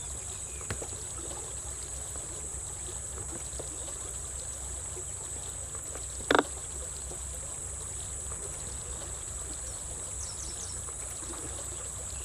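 Steady high-pitched chorus of crickets or similar insects over a low steady rumble, with one short, loud sound about six seconds in.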